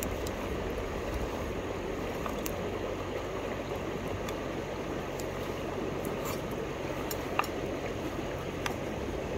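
Steady rush of flowing river water, with a few small sharp clicks scattered through it.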